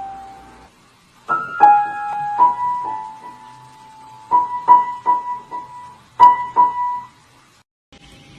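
Piano notes struck one or two at a time in a short, uneven phrase, some held and some quick, stopping about a second before the end.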